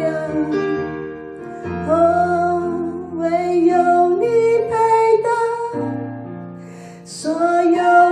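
A woman singing a Chinese worship song into a microphone over backing music with long held chords. Her voice drops out briefly about six seconds in, then comes back.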